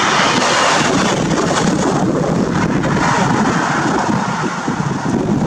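Wind buffeting the microphone: a steady, loud rushing with a choppy low rumble.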